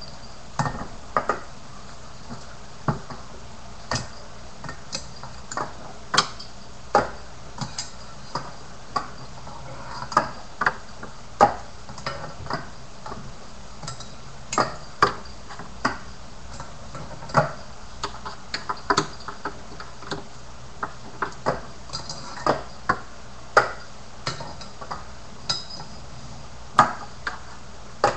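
Tiny finger BMX bike clattering against a wooden desktop: irregular sharp taps and clicks, one to three a second, as it is hopped, landed and knocked about by fingers.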